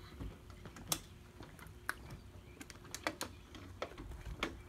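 Metal draw latches on a cart's lift-off lid being unclasped one after another: a series of irregular sharp clicks and snaps, the loudest about a second in.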